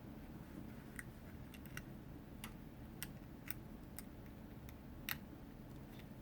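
Faint, irregular small clicks and taps of small plastic toy parts being handled and fitted together by hand, with one slightly louder click about five seconds in.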